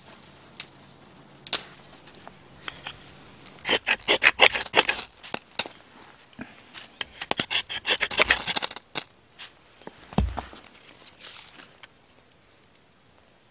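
Irregular scraping, rubbing and crackling as dry material is handled, in quick clusters of sharp strokes, with one dull thump near the end.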